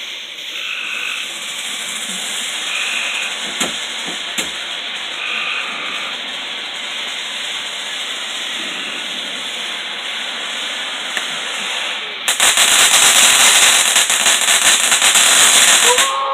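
Ground fountain firework spraying sparks with a steady hiss, with a couple of faint pops about four seconds in. About twelve seconds in it breaks into a much louder, dense crackling that lasts about four seconds.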